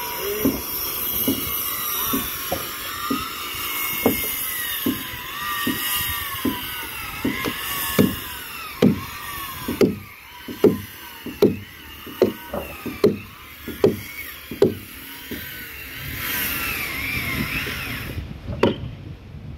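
Hammer knocking on a timber plank, sharp blows about one to two a second, louder in the middle stretch. A wavering higher-pitched tone runs above the knocks and stops near the end.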